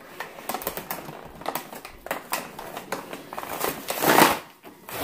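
Paper backing being peeled and torn off a printed Barbie playset panel: irregular crackling and rustling, with one longer, louder rip about four seconds in.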